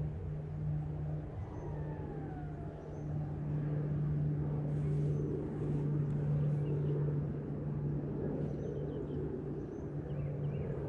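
Steady low hum of an engine running at an even pitch, with one faint falling whistle about two seconds in and a few faint high chirps.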